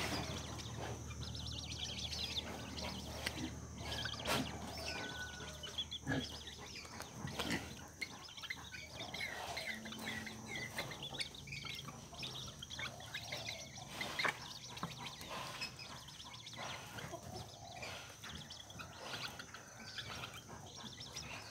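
Young purple swamphens calling: many short, high chirps and clucks, with a few sharp knocks in between.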